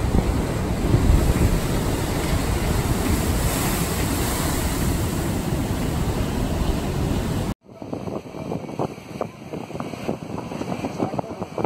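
Storm waves crashing against a seawall under strong wind, with the wind buffeting the microphone in a loud, steady rush. It cuts off suddenly about seven and a half seconds in, giving way to a quieter, uneven gusty noise with scattered short knocks.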